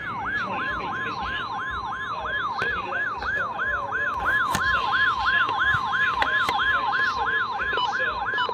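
A weather radio receiver's electronic alert alarm: a falling chirp repeated about three times a second. Under it, from about half a second in, runs the steady 1050 Hz NOAA Weather Radio warning alarm tone, which signals that a warning-level message is about to follow.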